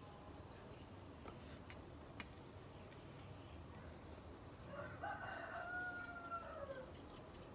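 A rooster crowing once: one long call of about two seconds, rising at the start and drooping away at the end. Two faint clicks come before it.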